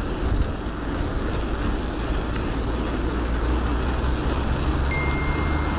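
Steady wind and road noise from riding an electric bike along a road, heavy at the low end. A thin, high, steady whine joins about five seconds in.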